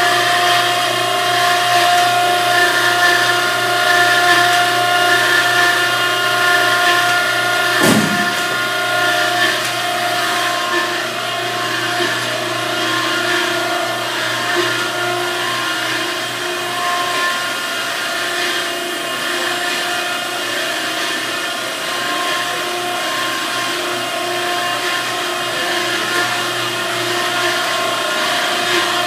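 Okamoto ACC 124N hydraulic surface grinder running: a steady machine hum with several steady tones, with one sharp knock about eight seconds in.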